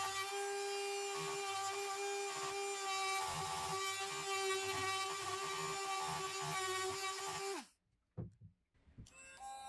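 Cordless rotary tool spinning a sanding drum inside the eye of a steel hammer head: a steady high whine over a grinding hiss. Near the end it winds down quickly and stops, followed by a couple of faint knocks.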